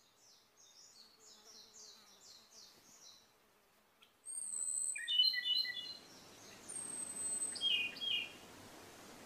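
Ryukyu robin singing: a quieter run of quick, repeated falling notes, then two louder phrases of clear, piping notes, each opening with a thin, very high whistle, about four and seven seconds in.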